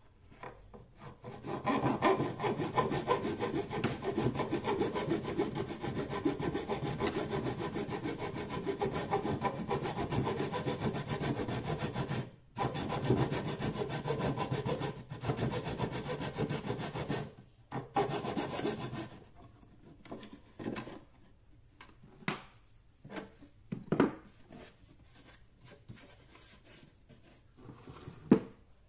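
PVC pipe being sawn by hand with a bare hacksaw blade, in fast back-and-forth strokes that cut out a rectangular panel, with a short break about twelve seconds in. The sawing stops after about nineteen seconds and gives way to a few scattered knocks and clicks as the cut-out piece is worked free and the pipe is handled.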